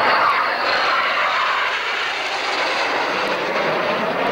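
Jet noise from a pair of Red Arrows BAe Hawk jets flying past in formation, a steady rush of engine noise that turns deeper over the last second.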